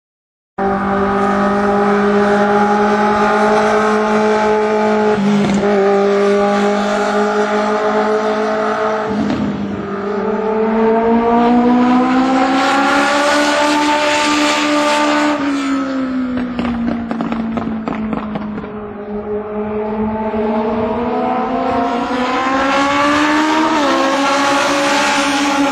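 Legend race car engine, a Yamaha 1200 cc four-cylinder motorcycle engine, running at speed on a short oval. Its pitch rises and falls smoothly several times as the car laps, starting about half a second in.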